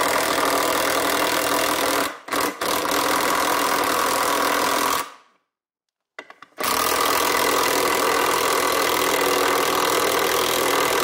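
A DINSHARE 20V brushless cordless 1/2-inch impact wrench is driving a screw into a wooden board, its hammer mechanism rattling hard under load. It runs in three stretches: a brief stop with two short blips about two seconds in, then a pause of about a second around five seconds in, then one long run until near the end.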